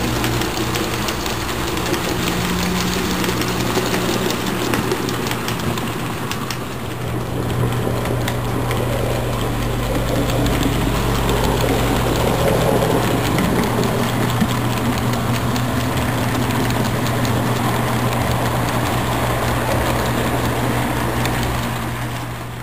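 HO scale model passenger train running past on the layout's track: a steady hum with many small clicks from the cars' wheels on the rails.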